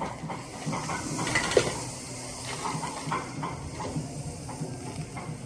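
Steady hiss with scattered small clinks and knocks of espresso machine parts being handled.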